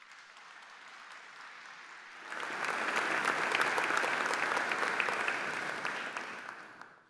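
Audience applauding: light at first, swelling about two seconds in, then dying away near the end.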